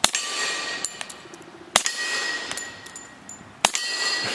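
Three suppressed .45 ACP pistol shots from an FNP-45 Tactical, just under two seconds apart, each followed by the ringing clang of steel plate targets being hit.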